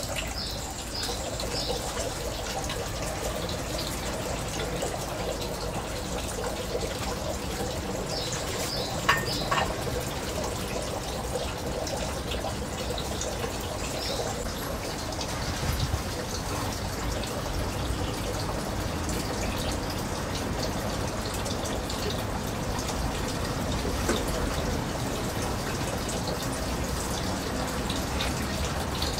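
Thin stream of water pouring steadily from a metal spout into a stone water basin at a Shinto shrine's purification fountain, trickling and splashing without a break.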